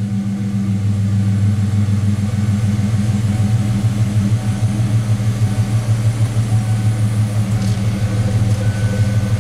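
Ford Mustang engine idling steadily, a low, even hum.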